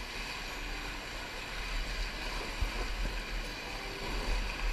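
Rushing whitewater of a shallow creek rapid, heard from a kayak running through it, over a steady low rumble. A single dull thump about two and a half seconds in.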